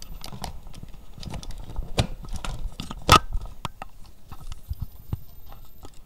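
Irregular clicks, taps and rubbing of a handheld phone being moved and objects being handled, with one sharper plastic-sounding knock about three seconds in.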